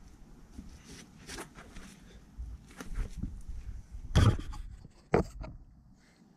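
Handling noise from the camera on block paving: light rustling and scraping, then a loud knock and scrape about four seconds in as it is grabbed and moved, and a sharp click about a second later as it is set down.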